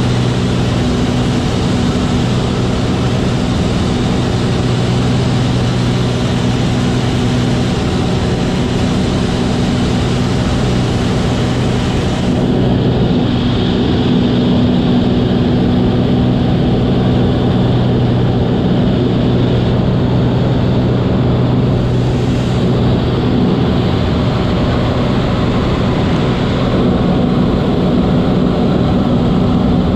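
Light high-wing plane in flight, heard from inside the cabin: a steady, loud drone of engine and propeller over rushing air. The hiss above it thins a little about twelve seconds in.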